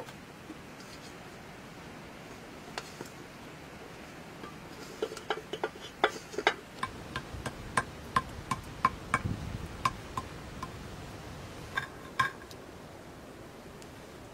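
A hand-held stone muller (Nepali lohoro) knocking on a flat grinding stone (silauto) as greens are crushed. The knocks are sharp, about two a second, each with a short ring. They run from about five seconds in to near the end, with a brief low rubbing between them.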